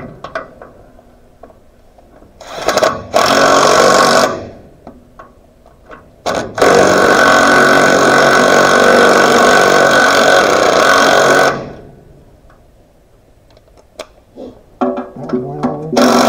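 Cordless power driver running in bursts on the bolts at the base of a tractor's gear-shifter boot: a short burst about three seconds in, a steady run of about five seconds from about six and a half seconds in, and a few short bursts near the end.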